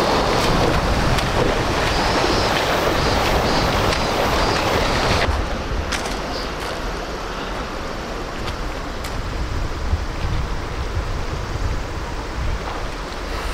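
A steady rushing noise with a low rumble, dropping in level about five seconds in.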